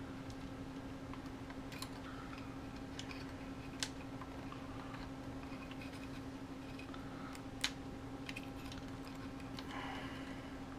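Scattered small plastic clicks and taps as the Phantom 3 drone's shell, cable and connectors are handled, with two sharper clicks a few seconds apart, over a steady low hum.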